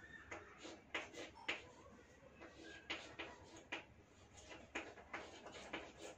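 Chalk writing on a chalkboard: a series of short, sharp, irregular taps and scrapes as the letters are stroked on, faint throughout.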